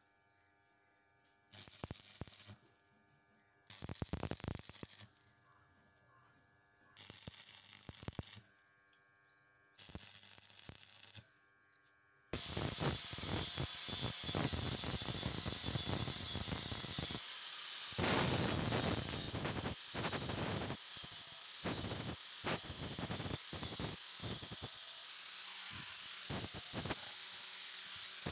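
Stick (arc) welding on steel: four short bursts of arc crackle, each about a second long, with a steady electrical hum between them. Then, about twelve seconds in, an angle grinder starts grinding the welds, its high whine wavering as the disc bears on the steel.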